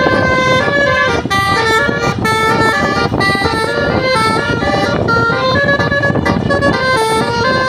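Basuri telolet musical bus horn playing a fast, loud tune of stepped horn notes over a steady low rumble.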